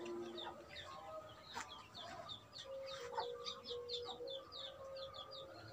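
Small birds chirping in quick, short, repeated notes, with a longer held call in the middle and a single click.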